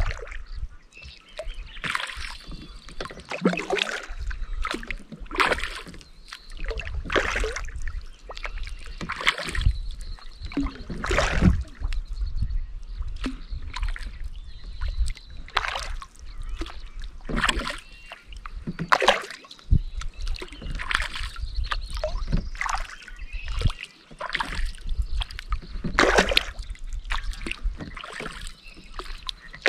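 Kayak paddle strokes: the paddle blade dipping and pulling through calm lake water, with a splash and drip every second or two. A low rumble runs underneath.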